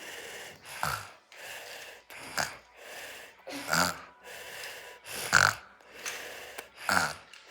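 A little boy snoring: a short snort on each breath, about every second and a half, five in all, with softer breathing between.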